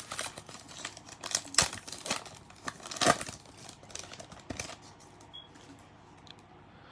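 A trading card pack's wrapper crinkling and tearing as it is opened, with sharp crackles through the first four or five seconds, then only faint handling noise.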